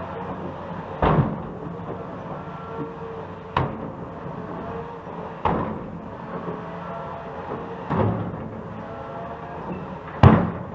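Road construction machinery running steadily, with a heavy bang about every two to two and a half seconds, five in all.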